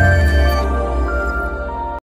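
Background music of held, sustained tones, with a deep bass note coming in at the start.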